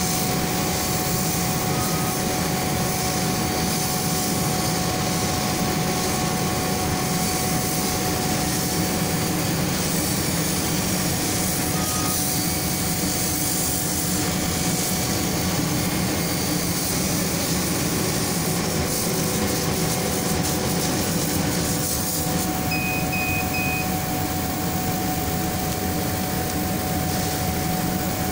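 Laser cutting machine running: a steady mechanical hum and rush of air with a constant tone. A few short electronic beeps sound, three quick ones in a row late on.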